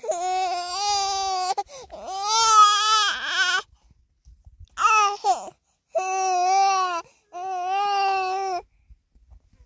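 An infant crying: five high wails in a row with short breaths between them, the middle one shorter and falling in pitch.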